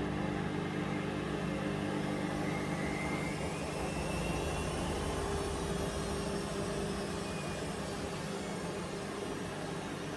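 Hoover Vision Dynamic washing machine running mid-cycle: a steady motor hum with a higher motor whine that glides in pitch partway through.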